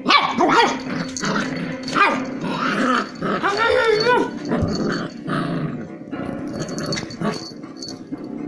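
Cocker spaniel puppy growling and giving a series of short yips and barks in play, quieter over the last couple of seconds.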